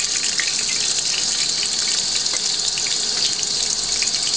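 Whole spices (dried red chillies, bay leaves, black peppercorns and cumin) frying in hot oil in an aluminium pressure cooker: a steady sizzle with scattered small crackles.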